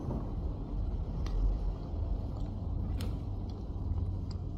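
A metal fork cutting cake on a ceramic plate, with a few light clicks of the fork against the plate, over a steady low rumble.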